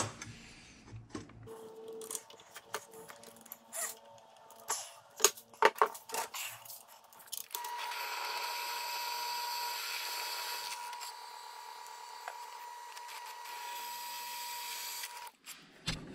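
Drill press drilling through steel angle iron: a steady whir with a constant high tone that starts about halfway through and stops just before the end. Before it, light clicks and knocks of metal pieces being handled.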